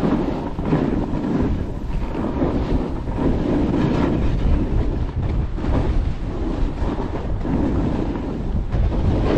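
Wind buffeting an action camera's microphone on a fast downhill run, over the low rumble and scrape of edges carving hard-packed snow. The noise swells and eases every second or two with the turns.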